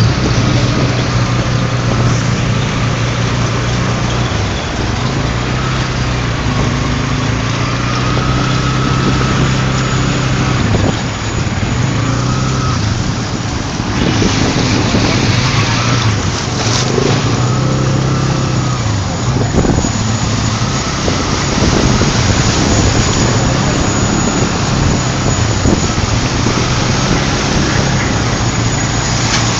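A motor vehicle's engine running steadily while driving through deep floodwater, its note wavering a little, over a continuous rush and splash of water.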